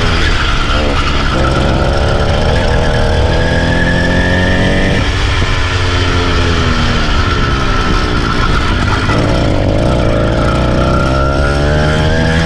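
Motorised bicycle's kit engine running hard, its pitch rising and falling several times as it is revved up and eased off.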